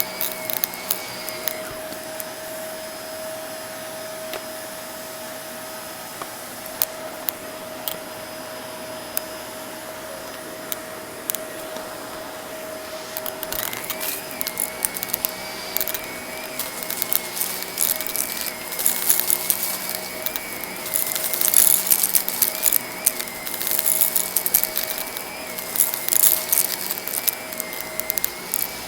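Vacuum cleaner running steadily, picking up crunchy debris from a rug: its whistle drops away a second or two in and returns about halfway, after which a dense crackle and rattle of grit and bits being sucked up builds and is loudest in the last ten seconds.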